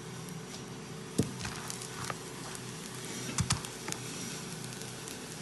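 A few light knocks and clicks over a steady low room hum: a sharp one about a second in and a quick cluster a little past the middle.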